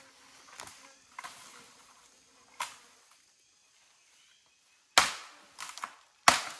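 A small bird's feathers being plucked by hand: soft rustling and tearing. Near the end come two sharp, loud knocks about a second apart, with lighter ticks between them.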